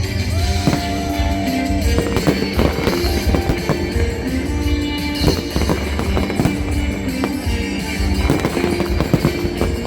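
Fireworks banging and popping, many bursts at irregular intervals, over loud music with a heavy bass.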